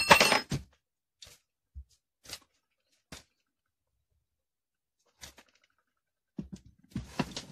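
A hand flicks a children's scooter's light-up wheel into a spin with a short swish, then the wheel coasts almost silently on its new 608-size bearings, with a few faint ticks. The axle screw has been loosened, so the wheel spins freely.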